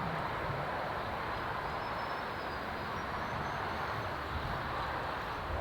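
Steady outdoor background noise with a low, even hum like distant road traffic, with no distinct events.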